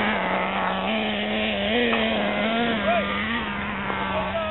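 Radio-controlled off-road cars' motors running on the track, several engine pitches rising and falling as the cars throttle up and back off.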